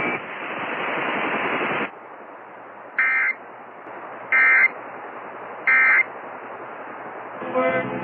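Emergency Alert System end-of-message data bursts: three short digital squawks, each about a third of a second and spaced about 1.3 s apart, over a background hiss. They signal the close of the test. Before them, a louder hiss drops away about two seconds in.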